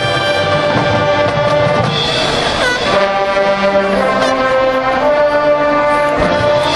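Marching band playing: the brass section holds sustained chords over drums and percussion. The chords change twice, and there is a brief sliding note near the middle.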